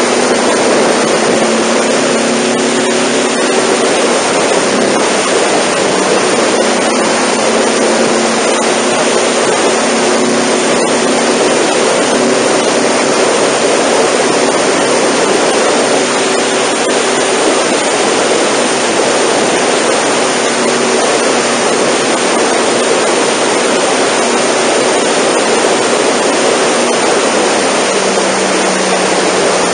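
Steady rush of wind over the microphone from a Honda NC700 motorcycle at expressway speed, with the bike's parallel-twin engine droning faintly underneath.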